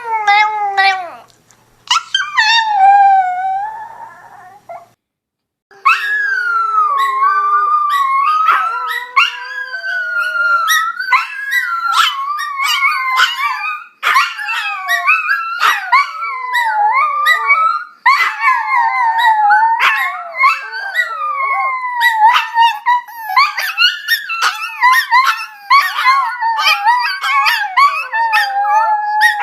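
Chihuahua howling: high, wavering howls that slide up and down in pitch, with a short pause about five seconds in and then near-continuous howling.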